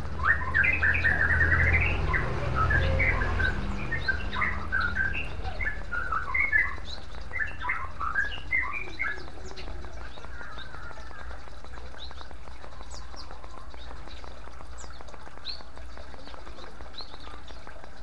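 Water from a bamboo fountain trickling and splashing steadily into a clay bowl and basin. A small bird sings a rapid run of chirps over it for the first nine seconds or so, then gives only scattered high, thin chirps.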